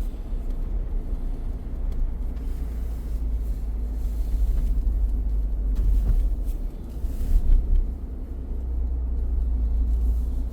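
Car driving along at steady speed: a constant low rumble of engine and tyre noise heard from inside the car, with a couple of small bumps partway through.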